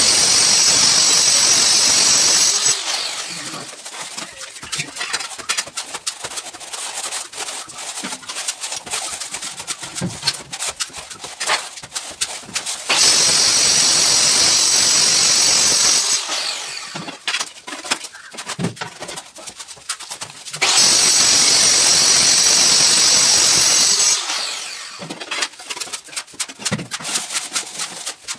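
A wooden straightedge scraping and rasping over wet sand-cement plaster in quick, irregular strokes. Three times, near the start, about 13 seconds in and about 21 seconds in, a loud steady hiss of about three seconds cuts in sharply and stops just as sharply.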